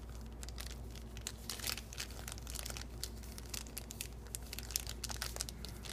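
Small clear zip-lock plastic parts bags crinkling as they are handled, an irregular run of soft crackles.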